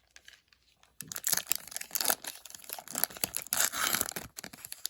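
A 2019-20 Upper Deck Series 1 hockey card pack's wrapper being torn open and crinkled by hand. The crackling starts about a second in and goes on in quick irregular rustles almost to the end.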